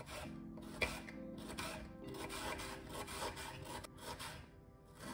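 Kitchen knife slicing an onion into rings on a bamboo cutting board: repeated rasping cuts, the blade meeting the wood, about two or three a second, over soft background music.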